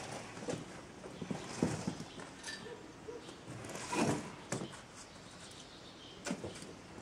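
Irregular knocks and clicks over a low background noise, the loudest about four seconds in.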